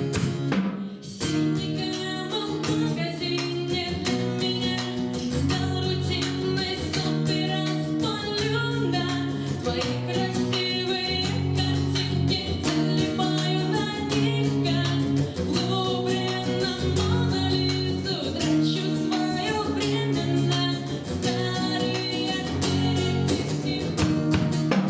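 Female singer with guitar accompaniment performing a song, with the guitar strummed steadily.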